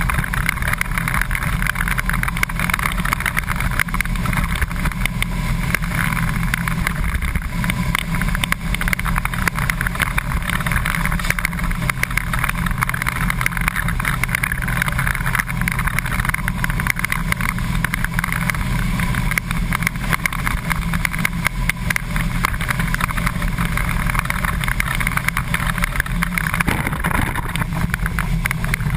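Flat-nose school bus engine running steadily under way, heard from inside the cab, with a constant clatter and rattle of the bus body.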